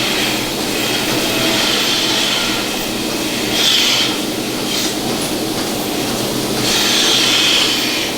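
Steady machinery noise, with a louder hiss about three and a half seconds in and again for about a second near the end.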